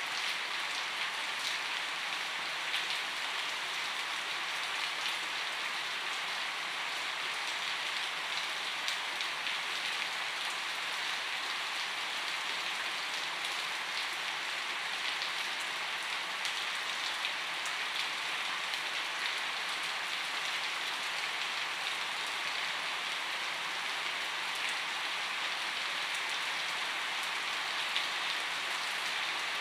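Steady rainfall: an even hiss with light droplet ticks scattered through it.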